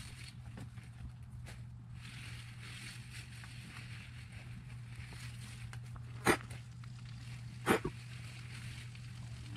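Beet leaves and roots rustling and scraping as beets are pulled from the bed, over a steady low hum. Two short, sharp sounds stand out, the first about six seconds in and the second a second and a half later.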